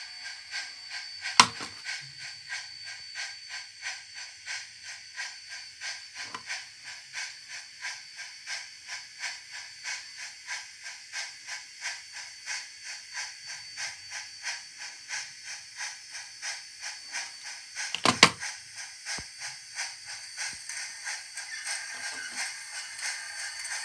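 Model steam locomotive running slowly along the track, giving a steady, even hissing chuff, roughly three a second. Two sharp clacks break in, about a second and a half in and again near 18 seconds.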